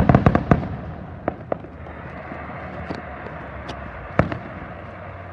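Aerial fireworks exploding: a quick cluster of sharp bangs at the start, then scattered single reports every second or so over a steady low rumble.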